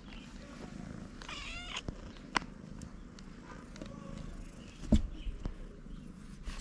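Stray cats purring close up while being petted, with one short meow about a second in. A sharp click a little later and a loud thump about five seconds in.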